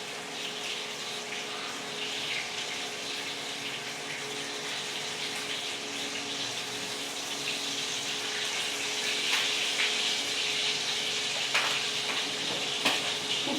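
Dried milkfish (daing na bangus) frying in hot oil: a steady sizzle that grows a little louder in the second half, with a few sharp pops of spitting oil near the end.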